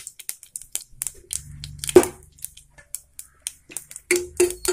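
Mustard seeds and dal sputtering in hot oil in a frying pan, with scattered sharp pops and crackles. There is a louder knock about two seconds in. From about four seconds in, a metal ladle stirs and clinks against the pan with a ringing note.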